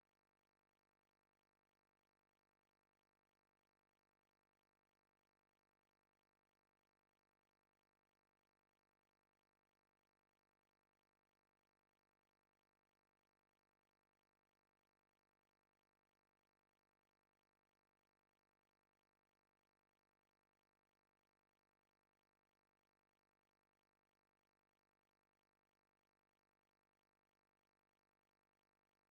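Near silence: no audible sound, only a faint steady noise floor.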